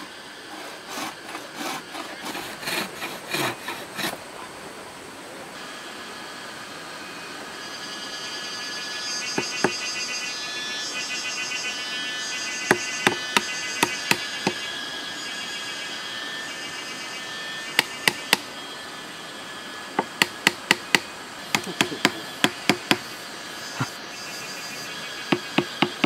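A frame saw cutting through bamboo in quick back-and-forth strokes for the first four seconds, then a small hammer tapping short bamboo plugs into holes in a thick bamboo tube, in clusters of sharp taps. Insects chirp steadily behind.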